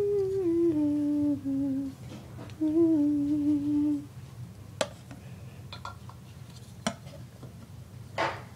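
A child humming a short tune in two phrases, the pitch stepping down, followed by a few light clicks and taps of small toy pieces being set down.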